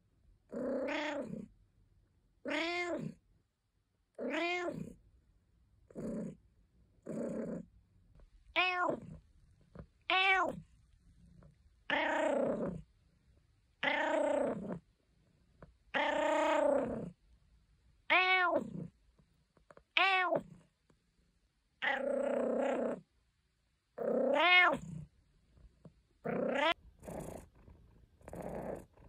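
British Shorthair cat meowing over and over, a string of drawn-out meows that each rise and fall in pitch, about one every one and a half to two seconds, turning shorter and quicker near the end.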